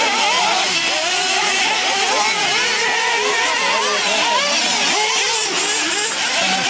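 Several nitro RC buggies' small two-stroke glow-fuel engines running at high revs together, their pitches rising and falling as they accelerate and back off around the track.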